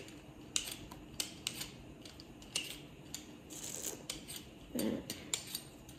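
Kitchen knife cutting potatoes on a cutting board: a series of irregular sharp clicks and taps, with a short scraping hiss about three and a half seconds in.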